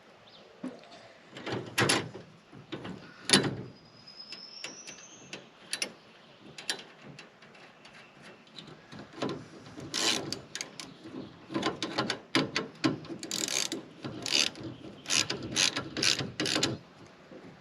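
Ratchet wrench and hand tools clicking and knocking on metal in irregular clusters, while a splice kit is bolted into a broken cutter bar on a combine header.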